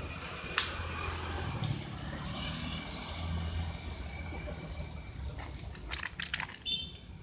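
Street noise from a wet road: a steady rumble and tyre hiss from traffic. A cluster of sharp clicks and rustles comes near the end.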